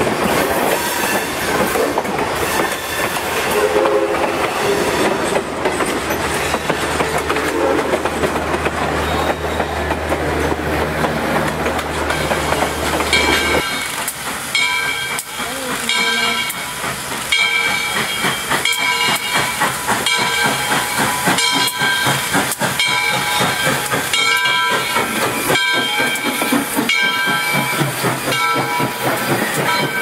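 Passenger cars of a steam excursion train rolling past with a rumbling clickety-clack and a steady low drone. About fourteen seconds in the sound changes abruptly to steam locomotive hiss, with a ringing tone of several fixed pitches repeated about once a second.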